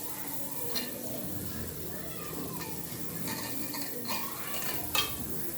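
Spoon stirring in a cooking pot of sugar and water cooking into caramel, with a few sharp clinks of the spoon against the pot, the loudest near the end, over a steady low hiss from the pan.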